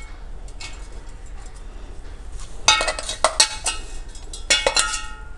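A spoon scraping and clinking against a mixer-grinder jar and a bowl as coarsely ground stuffing masala is emptied out. Faint scraping, then a few sharp ringing clinks about halfway through and another cluster shortly before the end.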